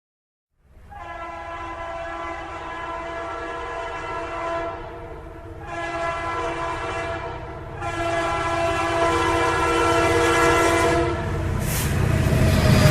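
A passenger train's locomotive horn sounding three long blasts, the last one the longest, over the low rumble of the approaching train. The rumble and rushing noise grow louder near the end as the train draws near.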